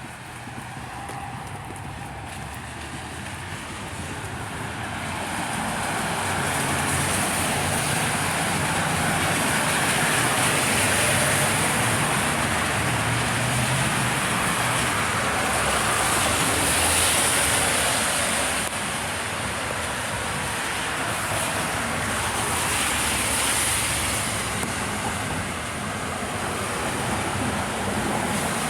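Traffic on a wet road: a steady hiss of tyre spray that swells and fades several times as vehicles pass.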